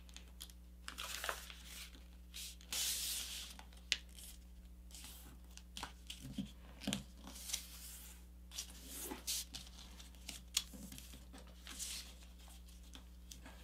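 A sheet of paper being folded and creased by hand: faint, intermittent rustling and crinkling, with soft scrapes as fingers run along the folds.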